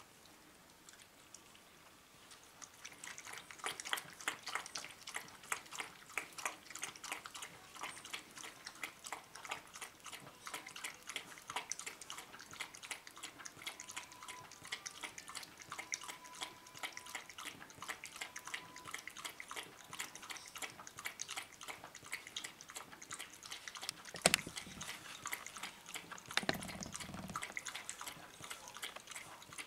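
Dog lapping liquid soup from a bowl: rapid wet licks and drips, starting about two seconds in and running on steadily. Near the end there is one sharp knock, the loudest sound, then a short low sound.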